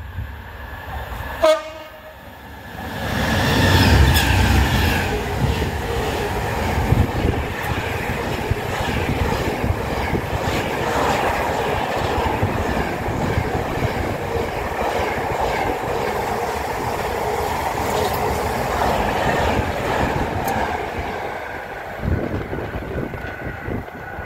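A freight locomotive gives a short horn blast on approach, then a long intermodal container train passes at speed: a loud, sustained rumble with rattle and clatter from the wagons, easing off as the last wagons go by near the end.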